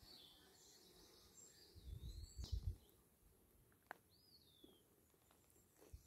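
Faint woodland birdsong: a few thin, high whistled phrases that swoop up and down, over near-silent background. A brief low rumble comes about two seconds in, and there is a single click shortly after.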